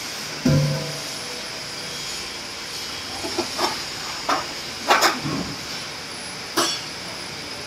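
Aluminium scaffold tower parts knocking and clanking as the top guardrail tubes are handled and fitted: a dull thump about half a second in, then a run of sharp metallic knocks over a steady background hiss.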